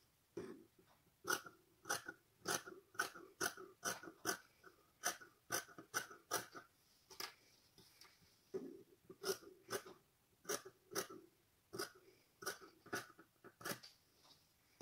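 Scissors snipping through cotton fabric, cutting out pieces around a pattern: crisp snips in quick runs of about two a second, with a short pause about halfway through.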